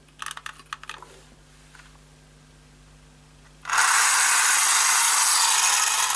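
A few small handling clicks, then a little under four seconds in the Guzzlers water-activated toy car's small electric motor and plastic gear train start suddenly and run loud and steady, switched on by the water in its tank.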